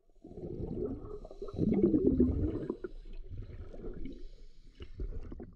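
Low, muffled underwater bubbling and gurgling, loudest about two seconds in, dying down and cutting off at the end.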